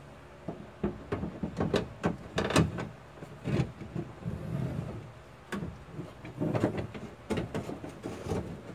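Irregular metal clanks, knocks and scrapes as a replacement window regulator is manoeuvred into the steel inner door of a 1990 Ford Bronco.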